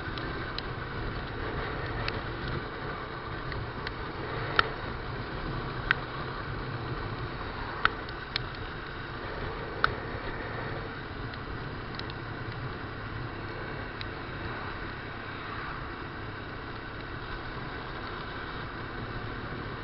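Honda NX200's single-cylinder engine running steadily at road speed, with wind and road noise. Several sharp ticks are scattered through the middle of the stretch.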